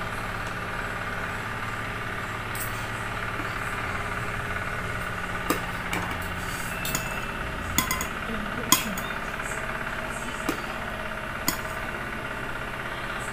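Kitchen knives clicking and tapping against a hard cutting surface while fruit is sliced, with scattered sharp clicks every second or two over a steady machine-like hum.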